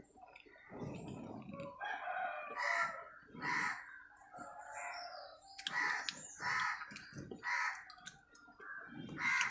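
Close-up crunching of brittle pieces being chewed, in a regular series of crunches. A rooster crows in the background partway through.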